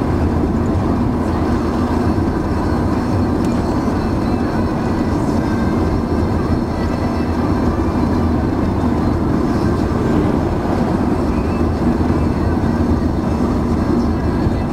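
A car driving steadily at road speed: even, low rumble of tyres on asphalt and the engine, without a break.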